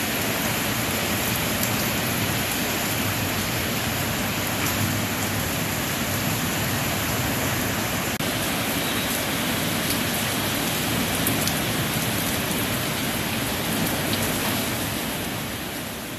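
Heavy rain pouring steadily onto pavement, plants and parked cars, fading out near the end.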